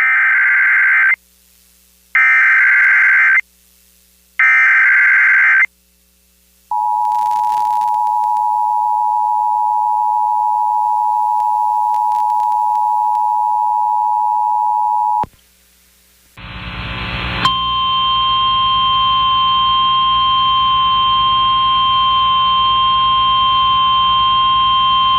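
Emergency Alert System activation. It opens with three one-second bursts of SAME header data tones, then the EAS two-tone attention signal (853 and 960 Hz together) holds steady for about eight seconds and stops. After a short gap, hissy relayed NOAA Weather Radio audio comes in, carrying a steady single tone near 1050 Hz, the weather radio's warning alarm tone.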